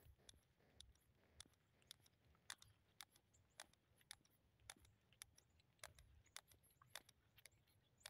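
Near silence with faint, irregular clicks, about two a second.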